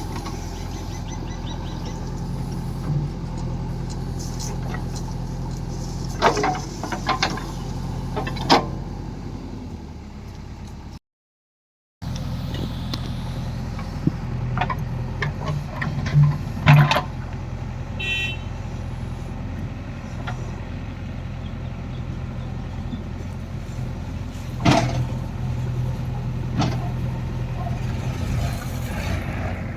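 A heavy farm machine's engine runs steadily, with several sharp knocks and clanks over it and a brief dropout partway through.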